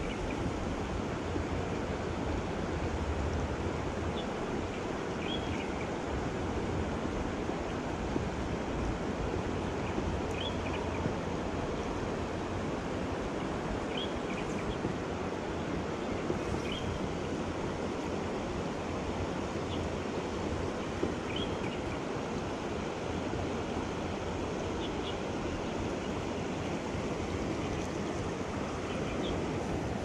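Shallow river water rushing steadily over rocky riffles close to the microphone.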